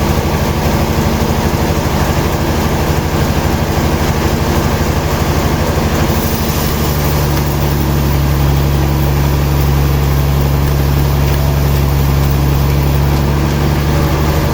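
Sawmill machinery running steadily with a low engine-like hum that grows stronger about seven seconds in.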